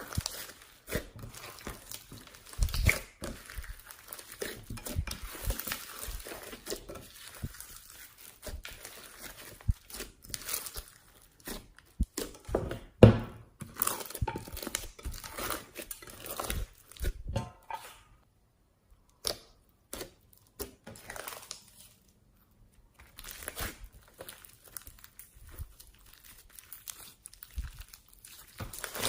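Slime being squeezed and stretched by hand, giving dense, irregular sticky crackles and pops, with two short pauses past the middle.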